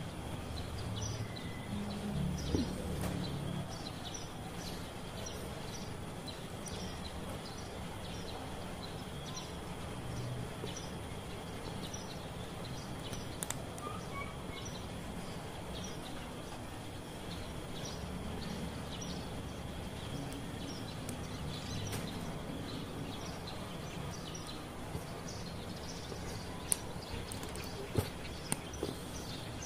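Plastic Gunpla model-kit parts being handled and pressed together, with a few sharp snap-fit clicks, the loudest near the end. Birds chirp over a steady background hiss.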